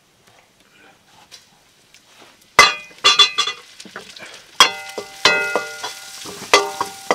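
A metal ladle stirring food in an iron wok, scraping and knocking against the pan. Each knock rings on briefly. The stirring starts about two and a half seconds in, after a quiet stretch, with the food frying between the strikes.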